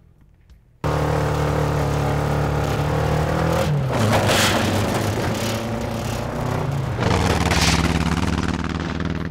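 Dune buggy engine running at speed, starting abruptly just under a second in, with a drop in engine pitch a few seconds later. Two louder rushes of noise come about halfway through and near the end.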